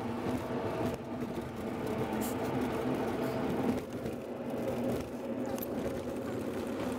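Car driving, heard from inside the cabin: a steady engine and road hum.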